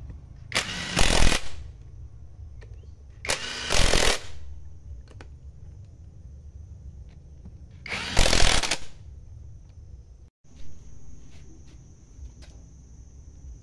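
Hand-held cordless power driver running in three bursts of about a second each, driving in the bolts on a hydrostatic pump housing.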